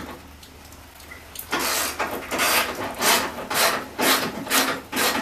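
Hand ratchet being swung back and forth on a fender bolt, a rasping click on each stroke. The strokes come evenly, about two a second, starting about a second and a half in.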